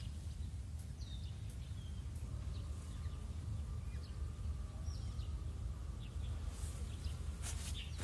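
Outdoor ambience: a steady low rumble with faint, scattered bird chirps, and a few brief clicks near the end.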